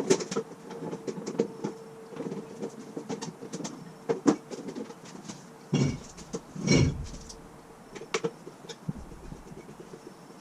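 Scattered clicks and light knocks of plastic side pod panels and their screws being handled and fitted back onto a motorcycle, over a faint steady hum. A couple of louder handling noises come around six to seven seconds in.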